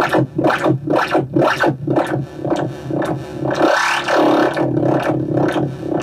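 Make Noise Eurorack modular synthesizer patch through the MMG filter: rapid filtered pulses about five a second over low held tones, a bright hissing filter sweep that swells up and falls back near the middle, then slower pulses about three a second.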